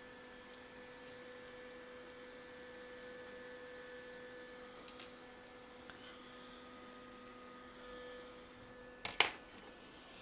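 Steady electrical mains hum with faint higher tones coming and going, and one sharp knock about nine seconds in.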